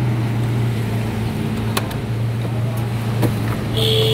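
Street sound dominated by a steady low hum of a running vehicle engine, with two faint clicks. A steady higher-pitched tone starts just before the end.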